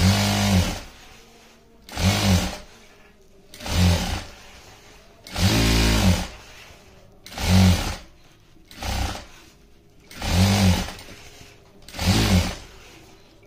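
Electric sewing machine stitching a folded fabric strip in about eight short runs, each a second or less, with brief pauses between them and one slightly longer run near the middle.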